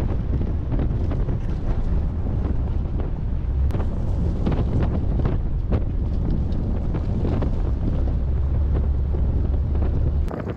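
Wind buffeting a camera mounted low by an off-road truck's wheel, over the steady rumble of a mud-terrain tyre rolling on a rocky dirt trail, with frequent short knocks of gravel and bumps.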